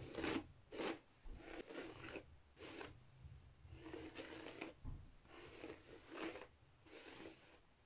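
Plastic hairbrush being pulled through long, curly hair, a faint rasping swish with each stroke, about one stroke every second.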